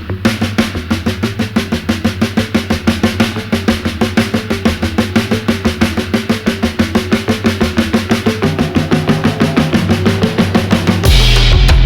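Background music: fast, steady drumming over a bass line, building and breaking into a louder, heavier section near the end.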